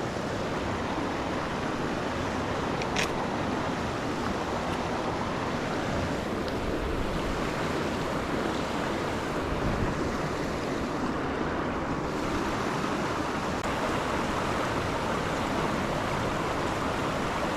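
Steady rush of a mountain trout stream's flowing water, with one brief high-pitched tick about three seconds in.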